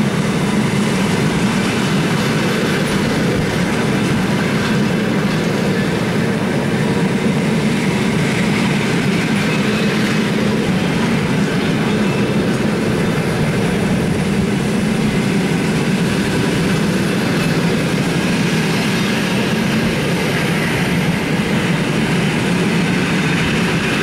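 Russian long-distance passenger coaches rolling past at the platform as the express train pulls into the station: a steady, unbroken noise of steel wheels running on the rails.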